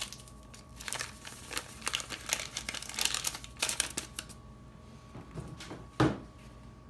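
Crinkling of a paper packet of instant pudding mix being shaken and tapped out over a mixing bowl, for about four seconds, then a single thump about six seconds in.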